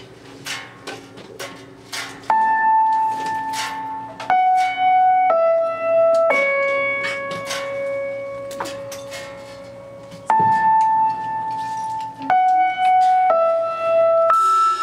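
Keyboard playing a slow descending phrase of four held notes, the fourth held longest and fading, then starting the same phrase again. A few light clicks come in the first two seconds.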